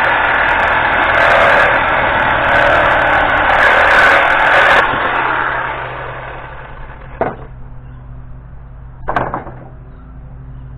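A power tool runs loudly and then winds down about halfway through, leaving a low steady hum; two sharp knocks follow, a couple of seconds apart.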